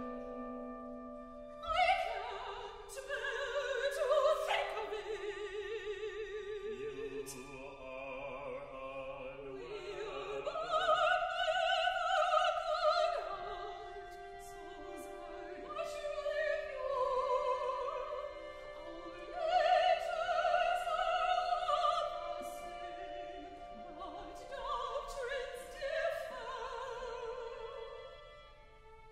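Operatic singing from a contemporary chamber opera, with long held notes in strong vibrato over a small instrumental ensemble. Sustained instrumental notes open the passage, and the voice comes in about two seconds in.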